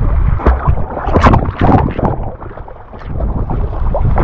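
Seawater sloshing and splashing against a camera held at the waterline, with low wind rumble on the microphone; the splashing is strongest about one to two seconds in, then eases briefly before picking up again.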